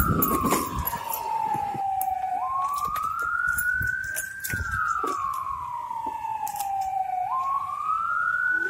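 Public warning siren wailing in a slow rise and fall, about five seconds per cycle: a quick jump up, a climb to the top, then a long slow fall. It marks the three-minute pause of all activity at 10:17 for the Independence Day commemoration.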